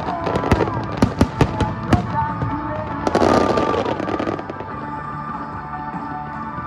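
Aerial fireworks shells bursting in a finale: a quick run of sharp bangs in the first two seconds, then a denser, longer burst about three seconds in, over a song playing throughout.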